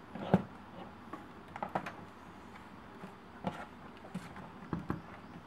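Keys on a Gateway laptop's keyboard pressed by hand: a handful of irregular clicks and taps, the sharpest about a third of a second in.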